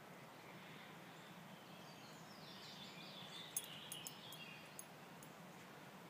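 Faint songbird song, one busy warbling phrase in the middle, with a few sharp clicks just after it.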